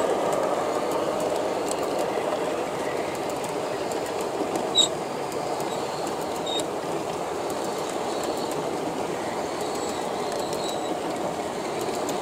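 G-scale model passenger cars rolling along garden-railway track: a steady rolling rumble of metal wheels on rail, louder at first as a car passes close, with scattered small clicks. There is a brief high squeak about five seconds in.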